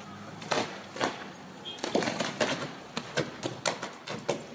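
Overhead power line arcing: irregular sharp crackling pops, several a second, loudest about two seconds in, as the line burns and smokes.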